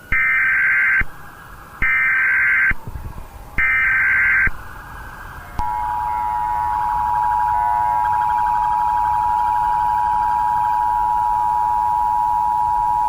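Emergency Alert System SAME header: three bursts of data screech, each about a second long, followed about five and a half seconds in by the steady two-tone EAS attention signal, which holds to the end.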